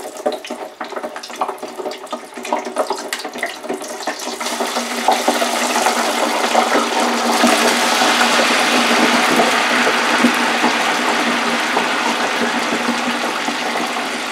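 French fries dropped into hot oil in a small electric deep fryer: a light crackling at first, then from about four seconds in a loud, steady hiss and bubbling as the batch fries in oil hot enough to cook them.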